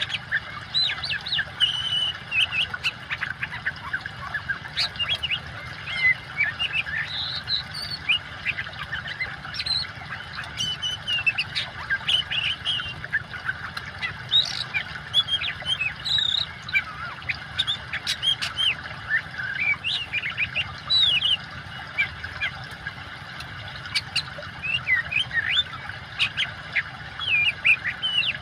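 Oriental magpie-robin (kacer) singing a continuous run of quick, varied whistles and chirps, over a steady rush of running water.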